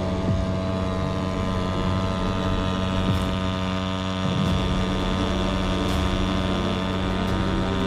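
Pro Quip USA 3 hp two-stroke outboard motor running steadily, a hum with a strong stack of even tones, picking up slightly about four seconds in.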